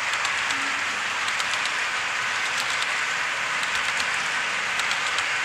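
HO scale model freight cars rolling past on the track: a steady rushing hiss of wheels on rail, with scattered light clicks.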